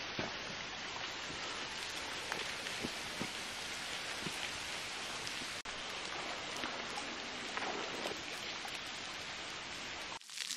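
Water trickling and dripping in a cave: a steady hiss with many small scattered drips.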